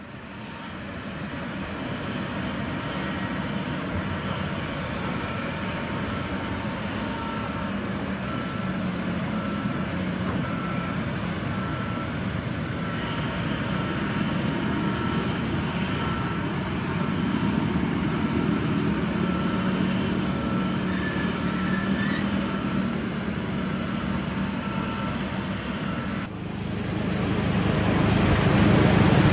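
Diesel excavator engines running steadily, with a short beep repeating about once a second. Near the end a motorcycle engine comes closer and grows louder.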